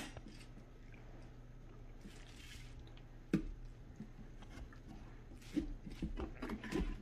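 Faint, soft squishing and scraping of wet pumpkin pulp and seeds being scooped out by hand from inside a hollowed pumpkin, with one sharper knock about three and a half seconds in.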